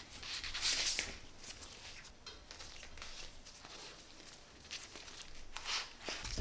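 Adhesive-backed polyurethane foam handlebar tape being pulled off and wound snugly around a drop handlebar by gloved hands: irregular rustling, crinkling and peeling noises. The loudest come about a second in and again near the end.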